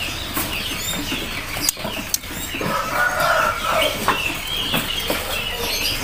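Many caged birds in a bird-market kiosk chirping and calling over one another, with a few sharp clicks.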